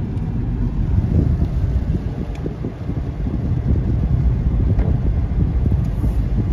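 Steady low rumble of a car driving, heard from inside the cabin, with a couple of faint ticks.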